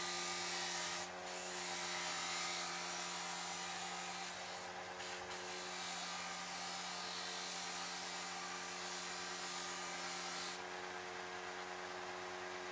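Bench grinder running with a steady motor hum while a wooden handle with metal fittings is pressed against the wheel, grinding with a rasping hiss that breaks off briefly a couple of times. Near the end the grinding stops and the motor keeps running.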